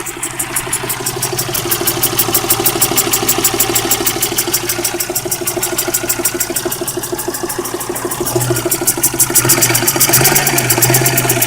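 Geo Metro engine idling with a fast, even knock, a little louder near the end. The knock comes from a worn, high-mileage engine, placed by the owner at the number one cylinder.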